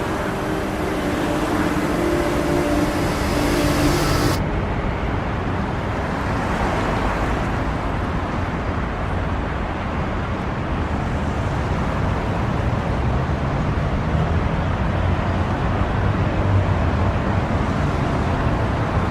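Steady vehicle and road noise with a low rumble. A few faint steady tones sound over it at first, and about four seconds in the sound changes abruptly as the highest part drops away.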